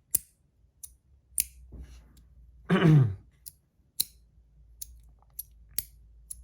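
Brass dual-strength magnetic micro slider fidget being slid back and forth, each stroke snapping into place with a sharp click, one or two clicks a second and not loud. About three seconds in comes a short vocal sound that falls in pitch, louder than the clicks.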